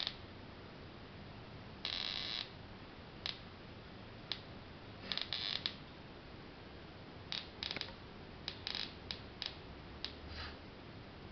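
Scattered rustles and light clicks of hands handling thin wire leads and components on a plastic breadboard. The sounds come at irregular intervals, with a longer rustle about two seconds in and small clusters later on.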